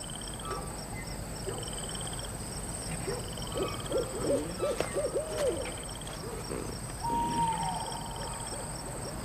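Night ambience: an owl hooting a quick series of hoots about three to five seconds in, over steady insect chirping that repeats about once a second. Near seven seconds comes a single higher call that bends down at its end.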